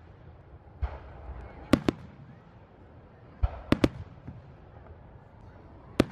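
Aerial fireworks going off: three times a dull boom is followed by sharp bangs, twice as a quick pair, and near the end a single sharp bang.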